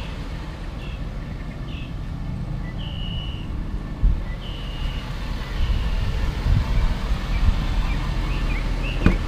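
Steady low rumble with scattered short, high bird chirps, the chirps thickening near the end, and a sharp knock just before the end.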